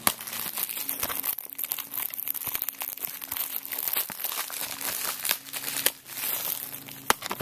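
Thin plastic shrink-wrap from a DVD case crinkling as it is handled and pulled at: a dense, irregular run of crackles with a few sharper ones.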